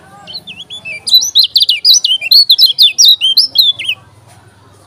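Kecial kuning, a yellow white-eye, singing a loud, rapid run of sharp chirping notes, each sweeping quickly downward, several a second. It builds about a second in and breaks off suddenly near the end.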